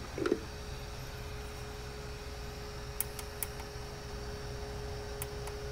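A steady electrical hum with a thin, even tone over it, and a few sharp clicks: three close together about three seconds in and one more near the end.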